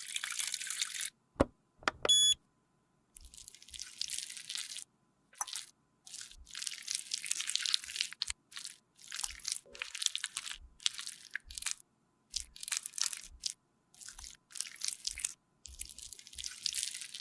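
Repeated short bursts of crisp, high scratchy noise, from makeup being handled up close, broken by silent gaps. A brief electronic beep sounds about two seconds in.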